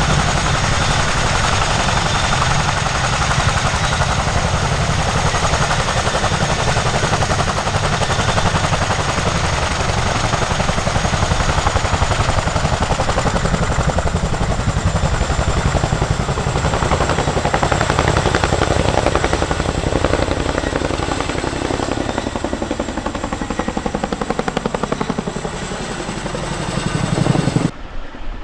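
RAF Chinook tandem-rotor helicopter running close by: rapid rotor beating over a high turbine whine, with the pitch sliding lower in the second half. It cuts off abruptly near the end.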